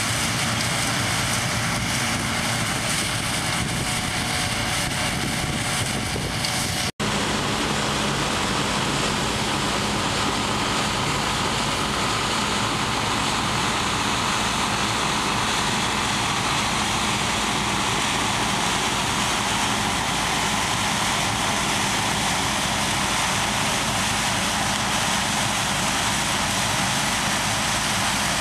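Combine harvester running as it harvests grain: a steady drone of engine and threshing machinery. It breaks off abruptly about seven seconds in and gives way to another steady drone of combines harvesting, with one machine close by.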